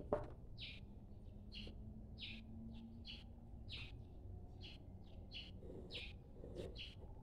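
A bird chirping faintly in the background: a string of short, high chirps, roughly one or two a second.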